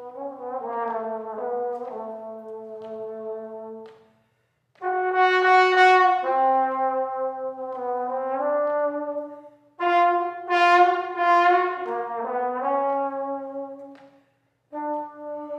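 Unaccompanied solo trombone playing phrases of held notes that mostly step downward in pitch, with short pauses between phrases; the phrases after the first two pauses start loudly.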